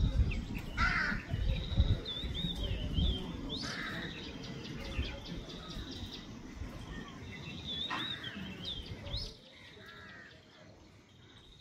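A crow cawing harshly a few times while smaller birds chirp, over a low rumble that drops away about nine seconds in.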